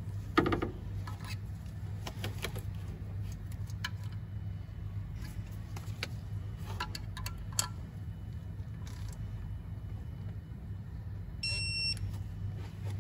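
Scattered light clicks and knocks of hand tools on an engine over a steady low hum; about 11.5 seconds in, a digital torque wrench beeps once for about half a second as it reaches its set torque on a light 10 Nm bolt.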